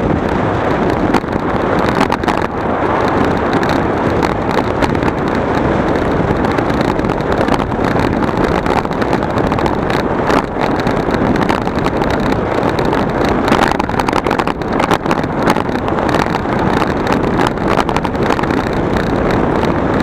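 A vehicle on the move, with loud steady rushing noise and frequent crackles of wind buffeting the microphone.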